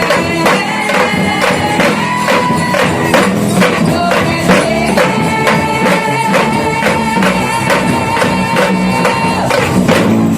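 Live gospel worship band playing a song, with a fast, steady percussion beat under held keyboard-like and sung notes.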